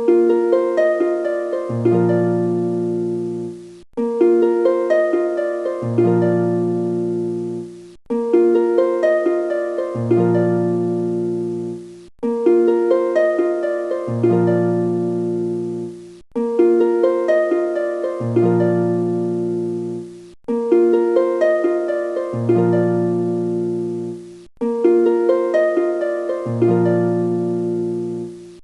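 Background music: a short plucked-string phrase repeating in a loop about every four seconds, each repeat cutting off sharply, with low bass notes coming in halfway through.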